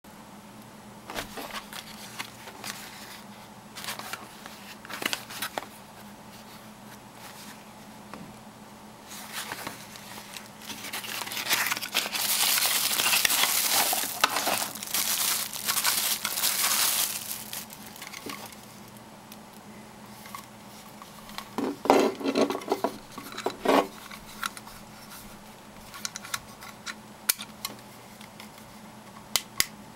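Packaging being handled during an unboxing: a paper padded mailer and plastic wrap crinkling and rustling, loudest for several seconds near the middle, with scattered clicks and a brief cluster of knocks from the cardboard box and plastic lantern being handled.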